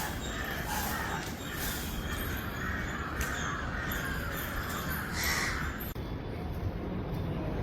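Crows cawing, several harsh calls crowding together, stopping about six seconds in.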